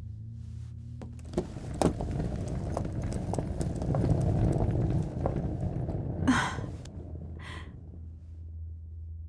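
Footsteps clicking across a hard floor, over a steady low hum, with a low rumble swelling in the middle. Two short hissy bursts come near the end.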